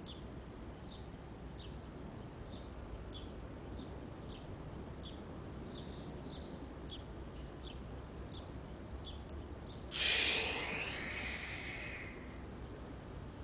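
A bird calling over and over, short high falling chirps about two a second. About ten seconds in, a sudden louder, harsher sound lasts for about two seconds and then fades.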